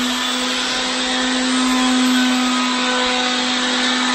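Electric motor of a power tool running steadily at constant speed, a loud even whine over a broad hiss.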